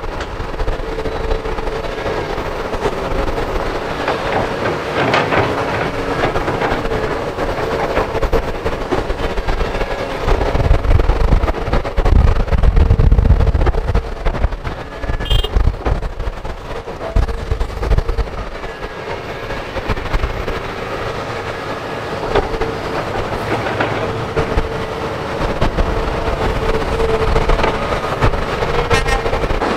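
Hydraulic excavators working, their diesel engines running with a steady whine, with knocks and clanks from the buckets in the soil. The low rumble swells louder about twelve to fourteen seconds in.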